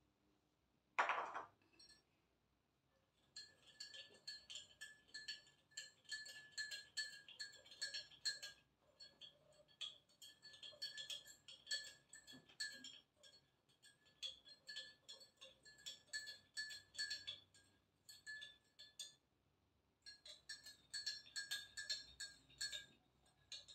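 A spoon stirring coffee in a ceramic mug, clinking against its sides several times a second, with a short pause near the end. A single loud knock about a second in comes before the stirring.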